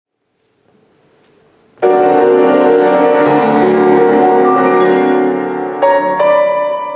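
Soldera grand piano played solo in boogie-woogie style. After a second or so of faint room noise it comes in loudly with a dense ringing chord held for about four seconds, then separate chords are struck near the end.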